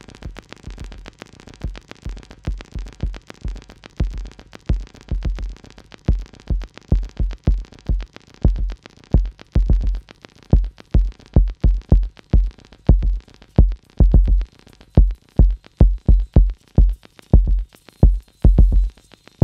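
Electronic background music: a synthesizer track with a drum-machine beat whose deep kicks grow steadily louder.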